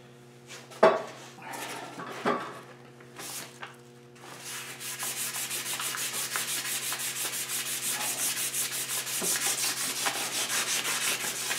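Chrome steel handlebars being scuffed by hand with abrasive paper to take off the gloss so paint will stick. A few separate strokes come first, then from about four seconds in a steady, fast back-and-forth rubbing, about four or five strokes a second.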